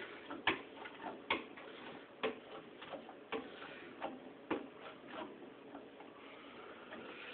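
Irregular sharp metallic ticks and clicks, about one or two a second, from the seized piston and hydraulic bottle-jack setup on an old Ruston engine as the piston is forced under pressure and heat.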